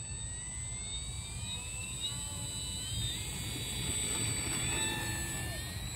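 Battery-electric motor and propeller of a radio-controlled Corsair model plane throttling up for a takeoff roll on grass: a whine that rises in pitch over the first few seconds, then holds steady.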